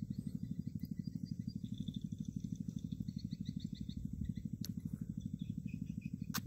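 A steady low throbbing, about a dozen pulses a second, with trains of high chirping calls over it and two sharp clicks near the end.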